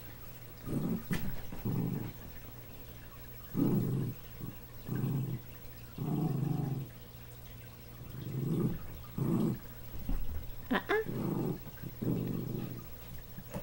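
Small dogs growling at each other in rough play, in short low bursts every second or two, with a brief higher-pitched cry about eleven seconds in.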